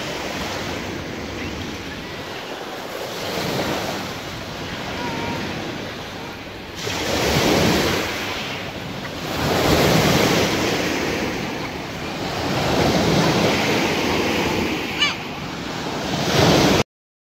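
Waves washing in on a rocky shore, a rushing sound that swells and fades every few seconds, with some wind on the microphone. A short sharp click about fifteen seconds in, and the sound stops suddenly near the end.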